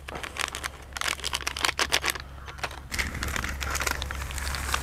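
Plastic packets of milk powder being torn open and crinkled by hand: a run of short, sharp crackles and rustles.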